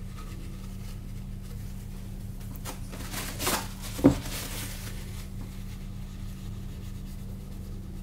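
Blue paper towel rustled and torn from a roll, one short tearing rustle about three and a half seconds in, followed by a single sharp knock, over a steady low hum.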